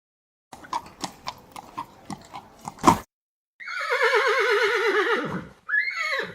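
Horse hooves clopping irregularly for a couple of seconds, then a long quavering whinny that falls in pitch, followed by a shorter whinny near the end.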